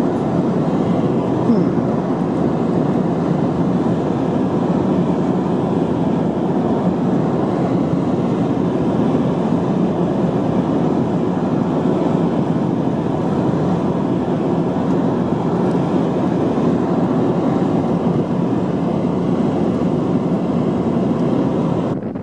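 Steady rumble of road and wind noise from a moving car driving alongside a moving freight train, with the train's running noise mixed in.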